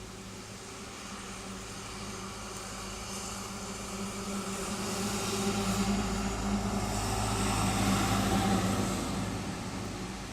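A motor vehicle's engine hum at a steady pitch, growing louder to a peak about eight seconds in and then fading, as if passing slowly by, over a steady hiss of wind and rain.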